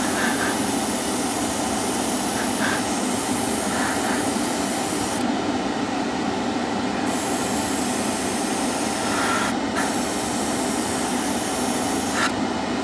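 Gravity-feed airbrush hissing as it sprays thinned lacquer paint in passes. Its hiss cuts off for about two seconds some five seconds in, and briefly near ten seconds and near the end. Under it runs the steady rush of a spray booth extractor fan.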